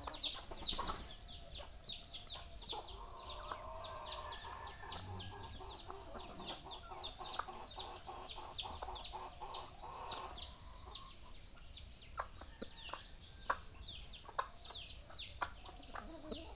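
Many birds chirping continuously in quick, high, falling notes, with a lower, rapid run of calls through the middle. A few sharp clicks come near the end.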